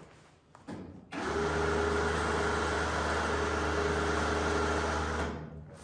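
Small electric winch motor running steadily for about four seconds as it takes up the strap to lift a 54-inch spare tire, starting about a second in and stopping near the end. A few light knocks come just before it starts.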